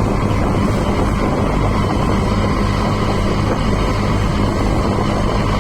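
Motorboat engine running steadily, a constant low hum with rushing noise over it.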